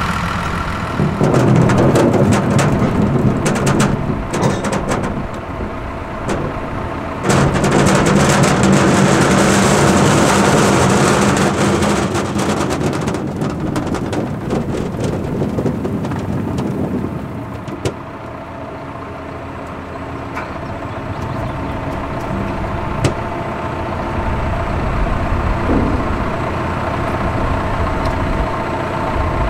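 Farm tractor engine running, with a loud stretch of rattling and mechanical noise through the first half. About halfway through it settles to a quieter, steady drone.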